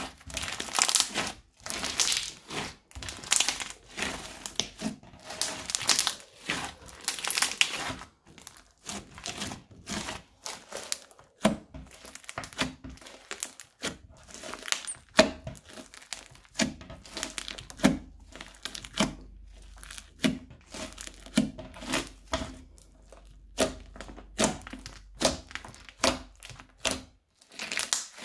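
Crunchy slime being squeezed and poked by hand: dense crackling for the first several seconds, then a run of separate sharp pops and clicks, a few a second.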